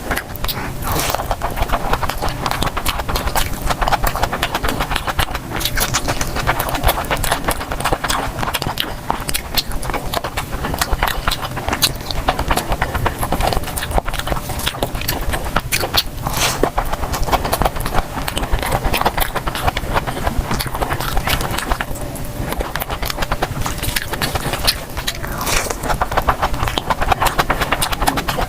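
Close-miked eating sounds: chewing, biting and wet mouth noises, a dense run of clicks and crackles that goes on without pause.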